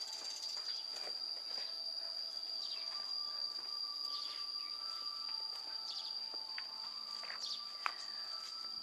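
Insects shrilling with one steady high note throughout, with birds chirping and whistling now and then. A single sharp click sounds near the end.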